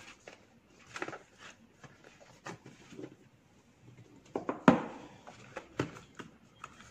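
Small boxes being handled and set down on a table: scattered taps, knocks and light rustling, with one sharper knock a little past the middle.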